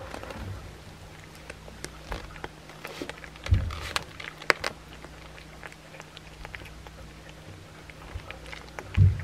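A cat chewing and crunching a raw chicken back, with many sharp cracks of bone between its teeth. Two loud low thumps stand out, one about three and a half seconds in and one near the end.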